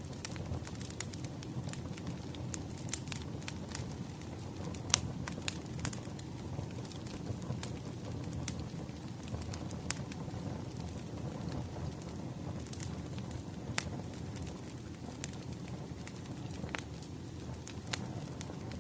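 Firewood burning: irregular sharp crackles and pops over a steady low rumble of the fire.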